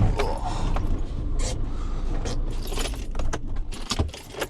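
Van engine running, with keys jangling and several sharp clicks from inside the cab.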